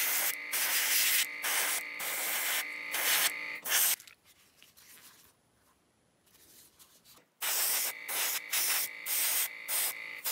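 Airbrush spraying paint onto a masked resin model part in short hissing bursts as the trigger is pressed and released, with a steady high tone under the spray. It stops for about three seconds in the middle, then starts again.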